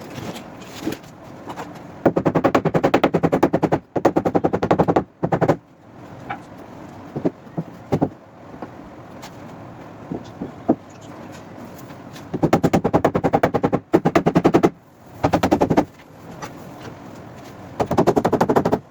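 Runs of rapid repeated hammering on car-body sheet metal, many blows a second, in five bursts of one to two seconds, with a few single knocks between them.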